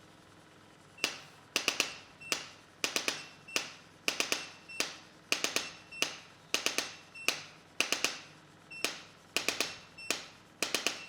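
Chiropractic adjusting instrument firing over and over: sharp clicks, some single and some in quick runs of two to four, about two groups a second, several with a brief high metallic ring. They start about a second in.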